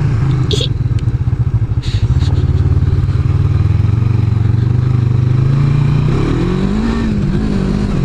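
Kawasaki Vulcan 500's parallel-twin engine running under way at steady low revs, then revving up about six seconds in and dropping back near the end. Two short clicks at about half a second and two seconds in.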